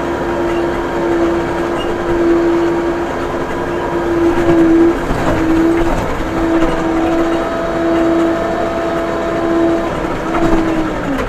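Case 580M backhoe's diesel engine running under working load, with a loud steady whine that breaks off briefly a few times from about halfway through.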